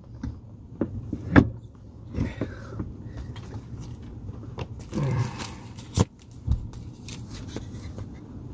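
Scattered knocks and clicks of things being handled and moved in a small room, the loudest a sharp knock about a second and a half in and another about six seconds in, over a steady low hum.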